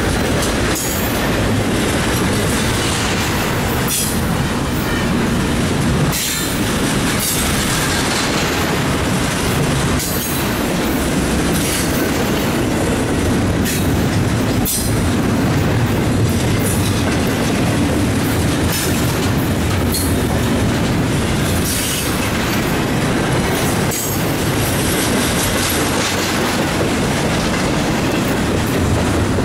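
Double-stack intermodal container train rolling past at close range: a steady rumble of steel wheels on the rails, with irregular clicks as wheels cross rail joints.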